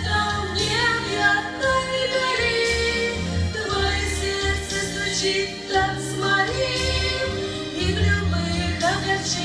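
Christian song: a woman's singing voice over instrumental accompaniment with a steady bass beat.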